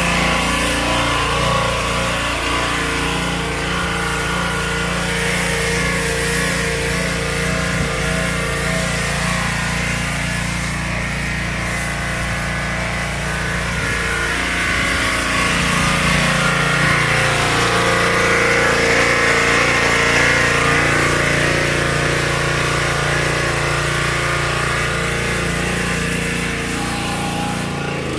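Petrol pressure washer running steadily: the small engine's hum under the hiss of the spray jet as snow foam is sprayed.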